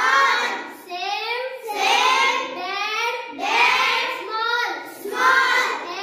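A class of children reading English words aloud in unison, in a drawn-out sing-song chant: about four phrases, each starting roughly every one and a half seconds.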